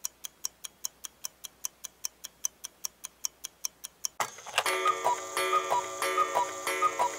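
Clock-like ticking sound effect, about five even ticks a second. About four seconds in, intro music comes in over the ticking, a falling two-note figure repeating about every two-thirds of a second.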